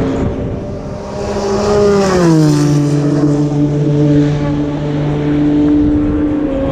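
Race cars going by at speed on a racing circuit. About two seconds in, one car's engine note drops in pitch as it passes, then a steady engine note holds until near the end.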